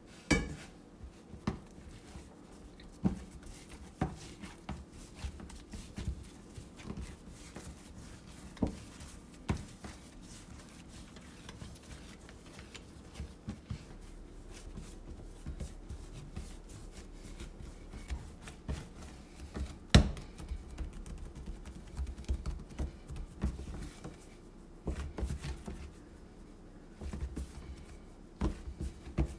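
Sourdough bread dough being kneaded by hand on a countertop: irregular soft knocks, taps and dull thuds as the dough is pressed, folded and pushed against the surface, with one sharper knock about two-thirds of the way through.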